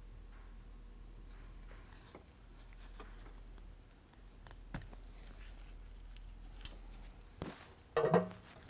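Wire strippers cutting and stripping the insulation off a red wire: a few faint snips and clicks, with a brief louder sound near the end.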